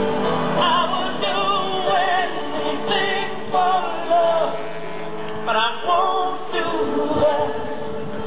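Music with singing: a sung melody with wavering held notes over a steady accompaniment.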